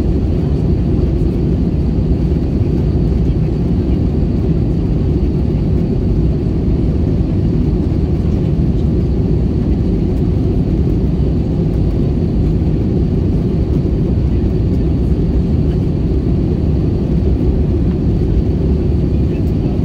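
Steady low roar of jet engines and rushing air, heard inside the cabin of an Airbus A320-family airliner in flight.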